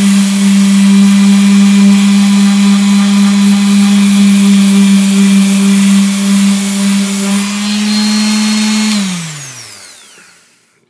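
Electric detail sander running with a steady hum and the hiss of 200-grit paper rubbing the canvas. About nine seconds in it is switched off and its pitch falls as the motor winds down to a stop.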